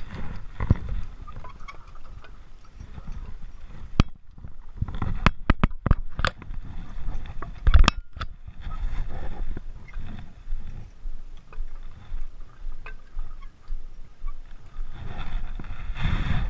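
Clicks and knocks from a climber moving on a hanging ladder of wooden log rungs, bunched near the middle with the loudest knock at the end of the run. A low, uneven rumble runs underneath.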